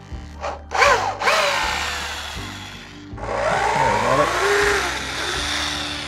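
Corded electric drill backing screws out of wooden blocking, running in two long bursts with its motor pitch rising and falling as the trigger is squeezed and eased. The first burst starts about a second in; the second starts about halfway through and runs on.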